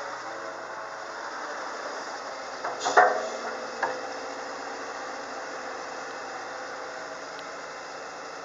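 Diesel engine of a Komatsu PW150ES wheeled excavator running steadily as the machine slews and moves. About three seconds in there is a loud metallic clank that rings briefly, and a smaller knock just under a second later.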